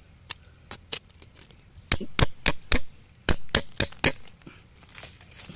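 Steel chisel chipping at rock and packed clay: sharp, short clicks, mostly in two runs of four at about four a second, with a few weaker ones before and after.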